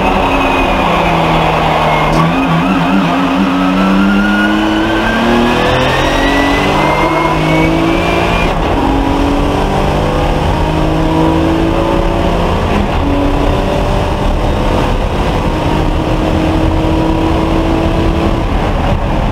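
Porsche race car engine heard from inside the cockpit, accelerating hard from about 65 to 158 mph. Its note climbs in each gear and drops back at each of several upshifts, and a high whine rises with it in the first half.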